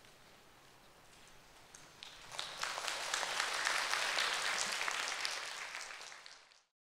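Audience applauding after a brief quiet, starting a little over two seconds in, building quickly and then fading out near the end.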